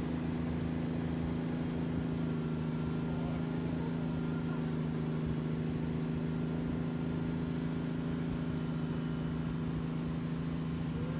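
Wakeboard tow boat's engine running at a steady speed, a constant low drone heard from on board the boat.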